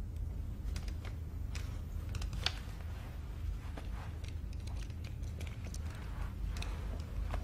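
A steady low hum of room tone, with scattered small clicks and rustles as a pair of wire-rimmed glasses is taken off and handled. The sharpest click comes about two and a half seconds in.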